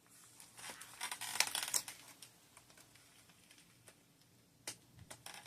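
Rustling and crinkling of a doll's box packaging being handled, in a cluster of short bursts over the first couple of seconds, then a single click near the end.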